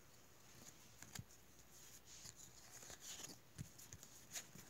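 Faint rustling and a few soft clicks of Pokémon trading cards being handled and slid against one another.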